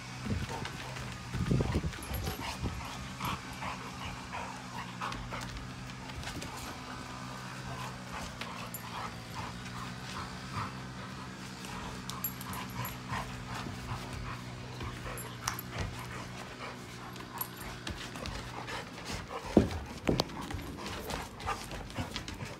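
Two Labrador retrievers playing tug-of-war with a rope toy, panting and whimpering, with many short clicks and knocks of paws and toy on deck boards. A steady low hum runs under most of it, and a sharp thump near the end is the loudest sound.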